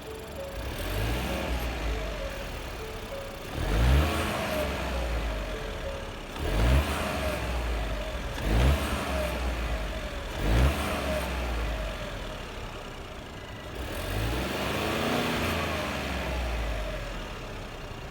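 Ford 1.0 EcoBoost turbocharged three-cylinder engine revved in about five short blips, each rising and dropping back to idle, then one longer, slower rev near the end. The owner hears a whine from this engine and asks whether it is normal.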